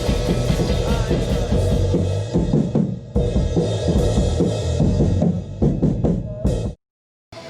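Rock band playing with the drum kit to the fore. From about two seconds in, the drums break into separate kick, snare and cymbal hits. The sound cuts off abruptly to silence for about half a second near the end.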